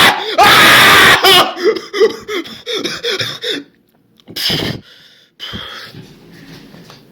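A man's voice in two loud, breathy yells of excitement that overload the recording, then a run of short gasping cries, about three a second, and heavy breathing.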